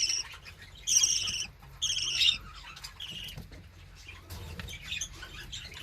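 Budgerigars chirping and chattering. Three loud warbling calls come about a second apart in the first half, then softer chatter follows.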